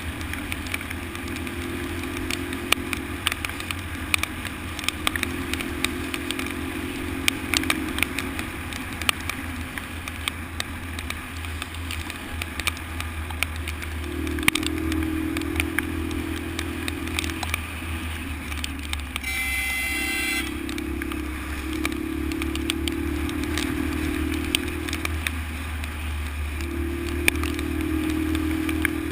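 Honda XL125 trail bike's single-cylinder four-stroke engine running as it rides a rough dirt road, its note coming and going with the throttle. Frequent sharp rattles and knocks come from the bike over the bumps, and a short beep sounds about twenty seconds in.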